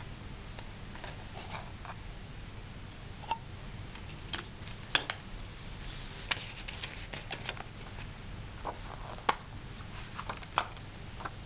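Handling noise from a CD in its plastic jewel case: scattered light clicks and taps, with a sharper snap about five seconds in as the disc goes back onto the case's hub, then paper booklet handling with more clicks near the end, over a low steady hum.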